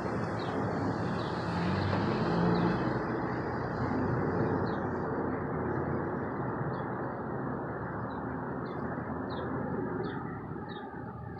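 Steady roar of distant vehicle noise, easing off near the end. A small bird gives short high chirps, roughly one every 0.7 s, through the second half.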